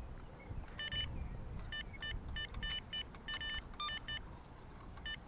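Electronic carp bite alarm beeping in short, irregular bursts as line is pulled, signalling a run (a fish taking the bait), over faint low rumble.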